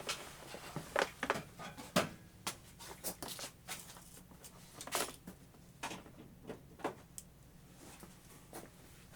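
Scattered light clicks and knocks as a rotary tool is handled, with no motor running.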